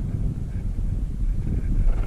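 Wind buffeting the action camera's microphone: a low, uneven rumble.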